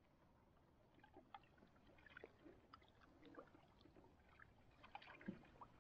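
Near silence, with faint scattered drips and small splashes of water from a canoe being paddled.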